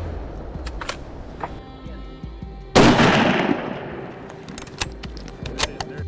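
A single loud gunshot about three seconds in, followed by a long echoing decay, with a few shorter, fainter cracks before and after it. Background music plays underneath.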